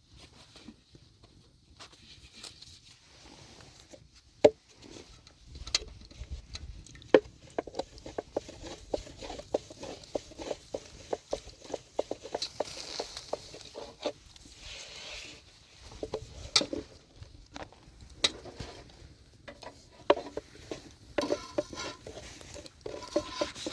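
Irregular light taps and clatter of objects being handled, with two sharper knocks about four and a half and seven seconds in.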